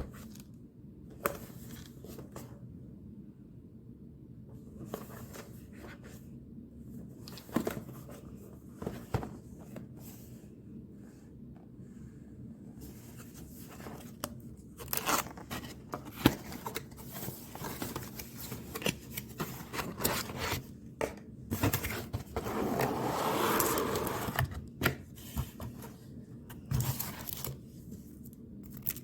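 Things being handled by hand: scattered clicks, knocks and scrapes, busier in the second half, with a longer rasping, tearing-like noise about three-quarters of the way through.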